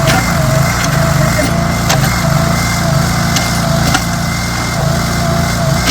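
Construction machine engine running steadily, its drone swelling and easing about twice a second, with a few sharp knocks scattered through it.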